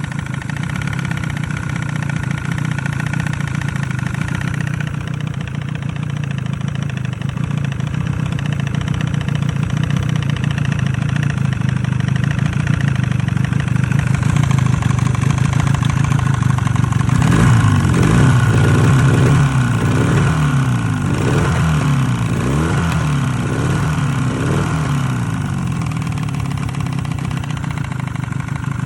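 Yamaha 30H two-stroke outboard motor running with a piston knock, the sign of scored cylinders and stuck piston rings from overheating. It runs steadily, then is revved up and down several times past the middle.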